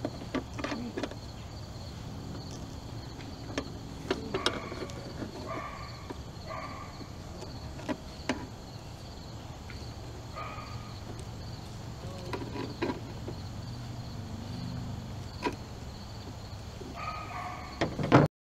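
Pliers and the metal wiper linkage of a Dodge Dakota clicking, knocking and scraping as a plastic linkage bushing is forced and snapped onto the linkage, with irregular sharp clicks and a few short squeaks. A steady high insect drone runs underneath.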